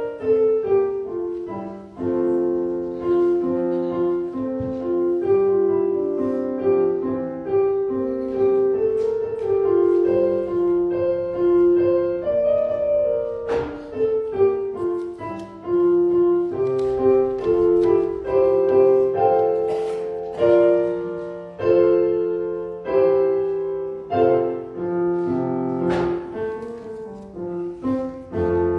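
Piano playing a slow piece, a melody over held chords.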